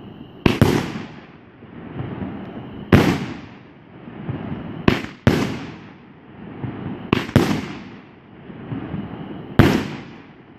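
200-gram consumer firework cake firing gold brocade shells: a sharp bang every two seconds or so, two of them in quick pairs, each followed by a fading tail.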